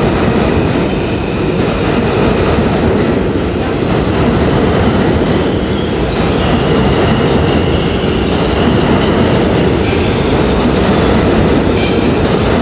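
A New York City subway train running through the station: a loud, steady rumble of wheels on the rails, with a faint high wheel squeal at times.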